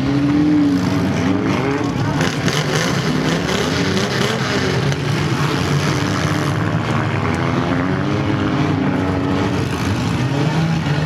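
Several compact demolition derby cars' engines running and revving at once, their overlapping pitches wavering up and down.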